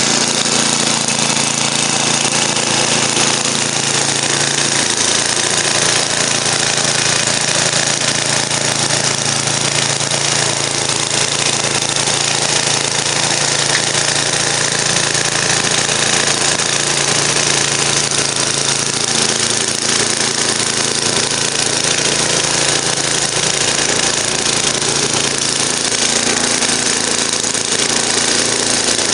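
Freshly rebuilt MTD 10 HP two-stage snowblower running under load, its single-cylinder engine running steadily while the auger and impeller chew through compacted snow and throw it from the chute. The engine note shifts slightly a few times as the load changes.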